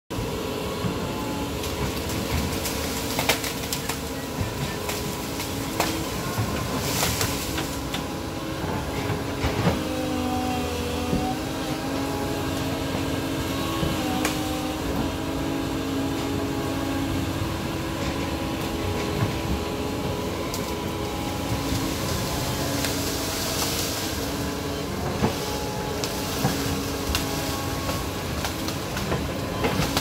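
Doosan DX225LCA crawler excavator working: its diesel engine runs steadily under a whine whose pitch bends up and down as the boom and bucket move. Scattered sharp knocks come through as the bucket works through soil and brush.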